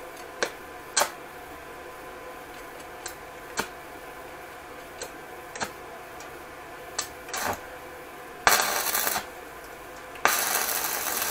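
Light metallic clicks and knocks as a steel footpeg mount is positioned on a moped frame, then two short bursts of electric welding crackle, each about a second long, near the end: tack welds fixing the mount in place.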